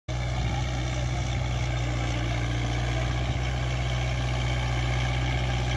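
Kubota MU4501 tractor's 45 hp four-cylinder diesel engine running steadily at an even speed, with a deep hum.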